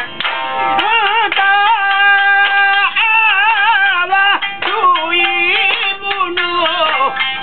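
A singer holding long, wavering notes in Japanese folk style, with plucked shamisen notes between the phrases.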